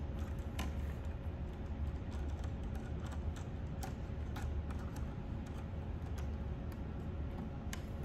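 Irregular light clicks and taps, about a dozen spread unevenly, as ferrule-tipped wires are handled and pushed into tool-free spring-clamp terminal blocks on a control panel. A steady low hum runs underneath.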